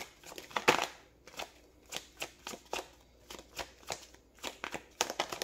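A tarot deck being shuffled overhand by hand: a quick, irregular run of soft card slaps and flicks, several a second, the sharpest one near the start.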